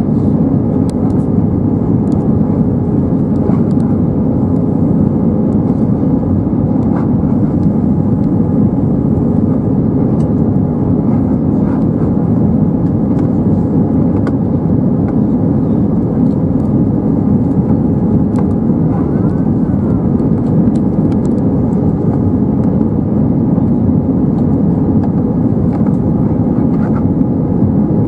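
Steady cabin noise inside an Airbus A320-232 in flight, heard from a window seat over the wing. A constant rush of air mixes with the low hum of its IAE V2500 engines.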